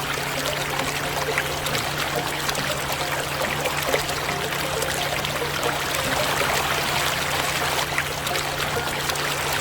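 Steady trickling, pouring water noise over a steady low hum.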